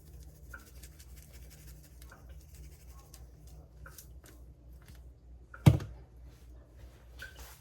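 Seasoning being shaken into a bowl of cornmeal coating, a faint scratchy hiss with small ticks over the first few seconds. About five and a half seconds in there is a single sharp knock, the loudest sound here, over a steady low hum.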